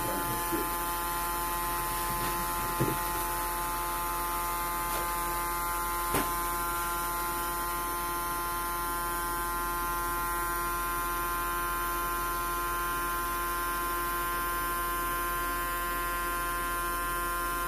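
Homemade 8-volt DC-powered voltage-boosting generator circuit running, giving a steady electrical hum made of several steady tones. A single sharp click comes about six seconds in.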